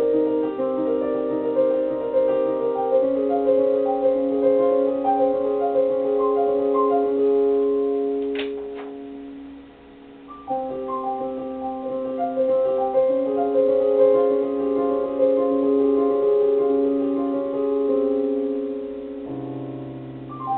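Solo piano playing a slow piece built on repeated broken-chord figures. The playing fades and pauses briefly about ten seconds in, then resumes, and a low bass note enters near the end.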